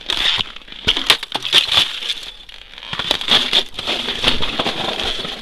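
Footsteps crunching in dry snow in deep frost, about −40 °C, over hummocky river ice. Loud crunches come roughly once a second, with crackling in between.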